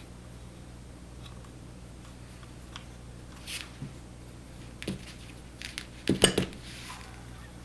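Hands fitting a small clear plastic washer onto a window blind's pull cord: light plastic clicks and cord rustles, with a louder rattling clatter about six seconds in, over a steady low hum.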